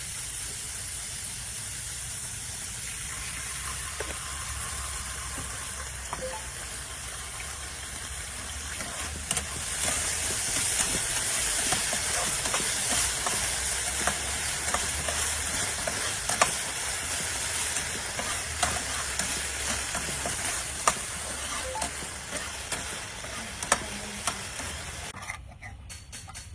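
A steady hiss with scattered crackles and clicks, growing louder about ten seconds in and dropping away near the end.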